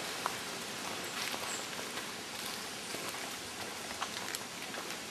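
Steady hiss of rainforest ambience, with a few faint, irregular ticks.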